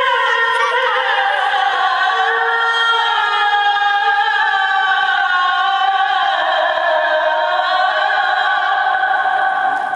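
A muezzin chanting the evening call to prayer (maghrib adhan) in one long, ornamented held phrase that slowly falls in pitch and ends near the end.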